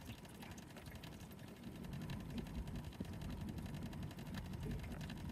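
Small tiller-steered outboard motor running at low speed, a low steady hum that grows a little louder about two seconds in.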